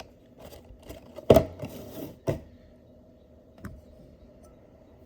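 A handful of scattered clicks and light knocks, like objects being handled or tapped, the loudest about a second and a half in, over a faint steady hum.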